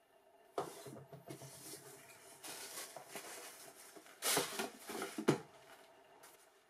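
Cardboard shoebox and tissue paper being handled: irregular rustling and crinkling of paper and cardboard, louder about four seconds in, with a sharp knock a little after five seconds, as of the lid closing.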